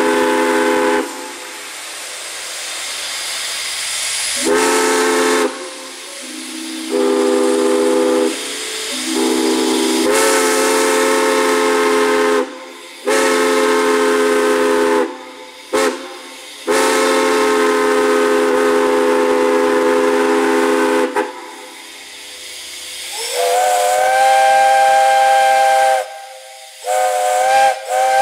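Steam whistles blowing: a low multi-note chime whistle sounds in a string of blasts of one to five seconds with short breaks, steam hissing between them. Near the end a higher-pitched chime whistle takes over.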